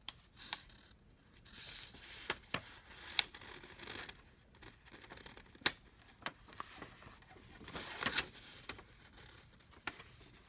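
Paper instruction sheets being handled and turned: soft rustling broken by several sharp, crisp snaps of paper.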